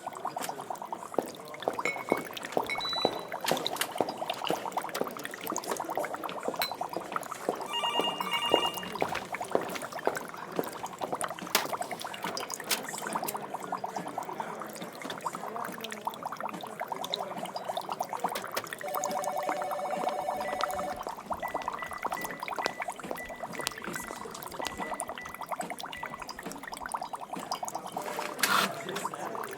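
Laboratory ambience of liquid continuously bubbling, gurgling and pouring, dotted with electronic equipment beeps. These include a short beep about a quarter of the way in and a lower two-tone tone lasting about two seconds around two-thirds through, followed by a faint high pulsing tone.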